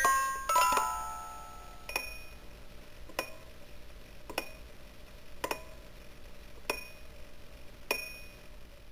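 Sputnik-1 souvenir music box: the last plucked notes of the tune in the first second, then a single bell-like ping of the same pitch, sounding six times about every 1.2 s.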